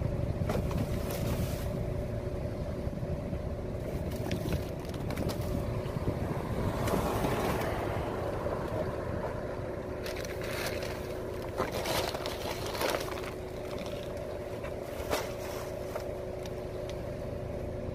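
A car engine idling with a steady hum, under scattered knocks and scrapes of boxes and bags being loaded into the boot.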